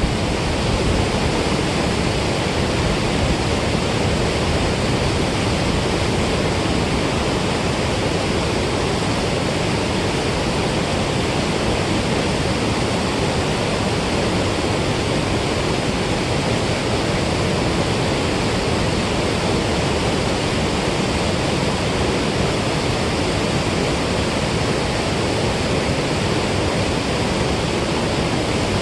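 Steady rush of water pouring out of a dam spillway into the river below.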